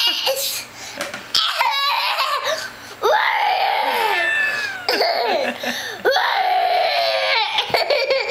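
A young child laughing and squealing in high-pitched voice sounds, with two long bouts that bend up and down in pitch, the first about three seconds in and the second about six seconds in.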